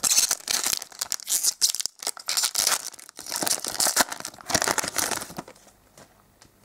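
Foil wrapper of a trading card booster pack crinkling and tearing as it is ripped open by hand, for about five seconds, then dying down to faint handling of the cards.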